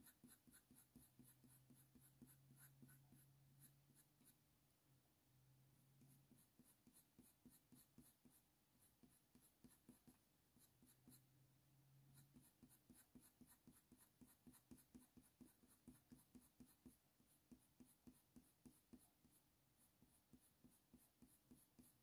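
Very faint scratching of a Faber-Castell Polychromos coloured pencil on hot-pressed watercolour paper, in short shading strokes repeated a few times a second at medium pressure.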